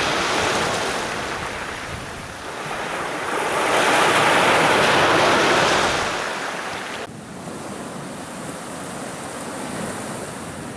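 Sea surf washing onto a beach: a wave swells and breaks loudest about four to six seconds in, then the sound cuts down abruptly to a quieter steady wash.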